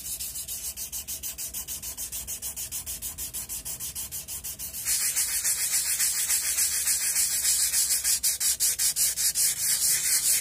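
Sandpaper rubbed by hand over a steel axe head, sanding back the surface after the bluing liquid, in quick back-and-forth strokes several times a second. It gets louder about five seconds in.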